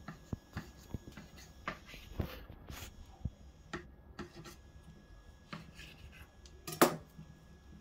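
Scattered light taps and scrapes of a knife blade against a tiled counter as it cuts through soft dough, with one sharper knock near the end.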